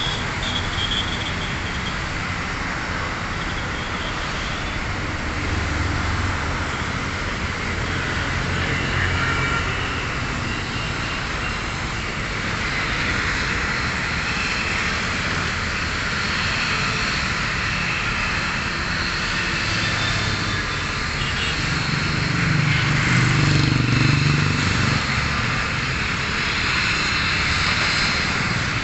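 Airliner engines running on the airfield, a continuous rushing noise. A low hum grows louder about 22 seconds in and eases off a few seconds later.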